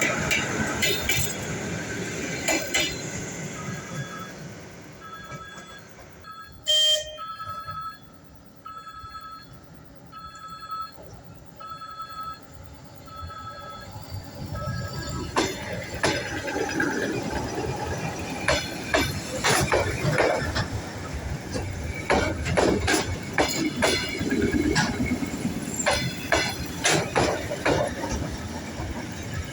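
Suburban electric train at a station. Running noise at first, then a short, loud, sharp signal about seven seconds in, followed by a regular beeping for several seconds. From about halfway on, wheels clack steadily over rail joints.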